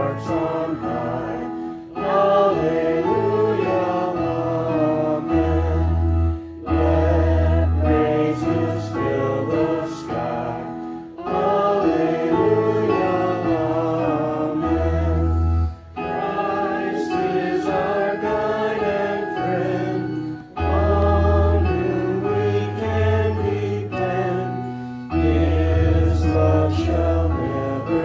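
Congregation singing a hymn together with instrumental accompaniment, in phrases of about four to five seconds with brief breaks between them.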